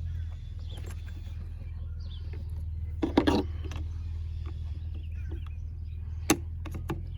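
Clicks and a short rattle of small parts being handled while a chainsaw is taken apart: a quick clatter about three seconds in, then a few single sharp clicks near the end, over a steady low hum.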